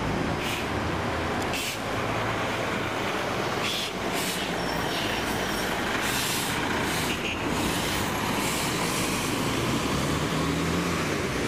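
Street traffic: the engines of a city bus, vans and cars running as they pass close by, in a steady rumble broken by several short hisses.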